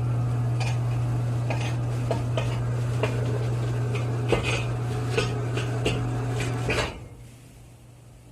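Repeated light metallic clinks over a steady low hum; both stop about seven seconds in.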